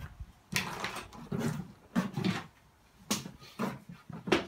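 Footsteps and a series of uneven knocks and clatters, about half a dozen over a few seconds, as someone walks into a small room.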